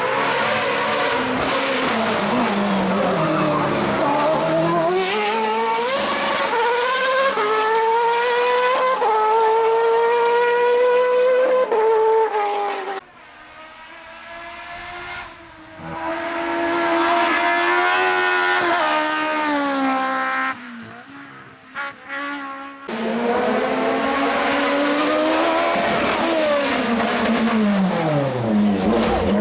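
Hillclimb race car engines at full throttle, revving high and climbing through the gears, the pitch rising and then dropping at each upshift. Several cars in separate clips cut together, the sound breaking off abruptly about 13 seconds in and again shortly after 20 seconds.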